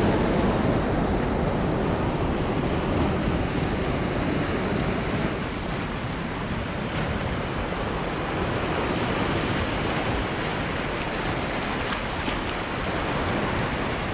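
Sea surf breaking and washing over a rocky shoreline, with wind noise on the microphone. The wash is loudest in the first few seconds, then settles to a steady lower hiss.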